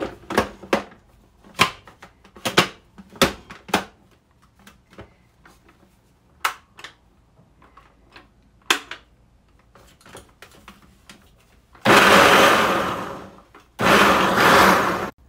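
Plastic food processor lid and pusher clicking and knocking into place on the bowl, then the food processor motor run in two short pulses of about a second and a half each near the end, grinding plain cooked chickpeas with nothing added. The two grinding pulses are the loudest sounds.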